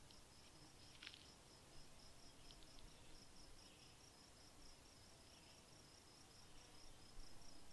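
Faint crickets chirping, a steady run of short high-pitched chirps repeating a few times a second, with a brief descending chirp about a second in.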